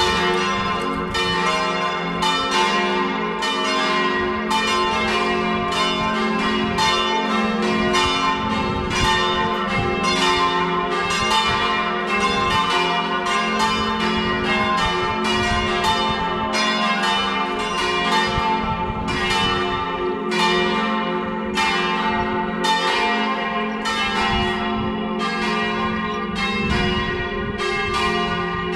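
Four swinging church bells in G-flat, rung together in the Tyrolean style as a full peal. The strokes come a few a second and overlap in a continuous, ringing clangour.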